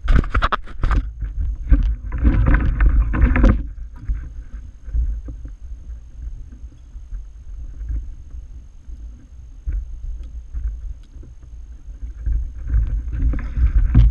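Kayak on open water heard through a head-mounted camera's microphone: a steady low wind rumble, a hand knocking and rubbing against the camera in the first second, and a louder rustling, splashy stretch from about two to three and a half seconds in.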